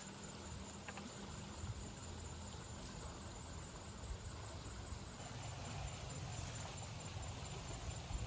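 Faint outdoor background with insects chirring: a thin, steady high note that pulses continuously over a low rumble.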